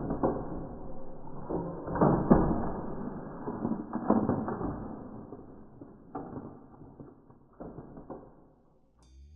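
A series of muffled thuds and bangs, each with a short ring-out, the strongest ones in the first half and fading away toward the end.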